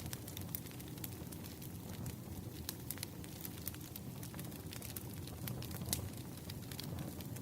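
Wood campfire burning, a steady low flame rumble under irregular sharp crackles and pops, several a second.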